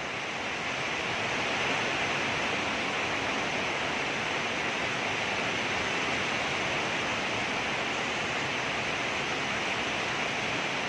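A steady, even hiss of background noise, with no breaths or other separate sounds standing out.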